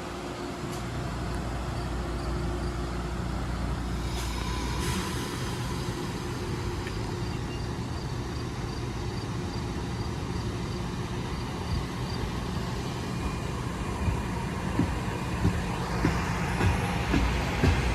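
NJ Transit Arrow III electric multiple-unit train humming steadily at the platform, then a rising clatter of wheels over rail joints near the end as it gets moving.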